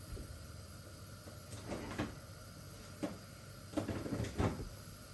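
About half a dozen light knocks and clunks, about a second apart, typical of kitchen cupboard doors and cookware being handled.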